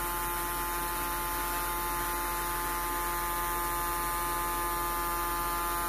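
Steady electrical hum made of several fixed tones from the running homemade generator circuit that is lighting the LED panel.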